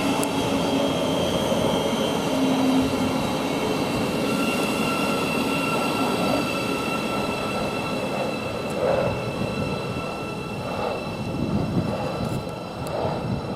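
Thameslink Class 700 electric multiple unit running into the platform and slowing to a stop, with a steady high whine of several tones over the rumble of the train.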